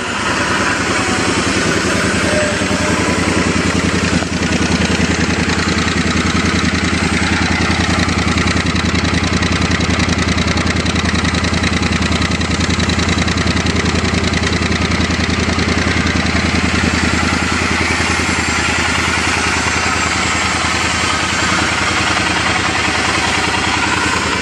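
Triumph Bonneville T100's liquid-cooled 900 cc parallel-twin engine idling steadily after a start, breathing through the stock Triumph Scrambler 900 twin high-level silencers, a factory exhaust with a mild, not very loud note.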